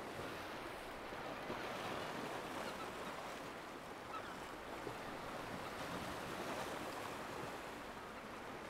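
Sea swell washing and breaking against shore rocks: a steady surf wash with no clear separate breaks.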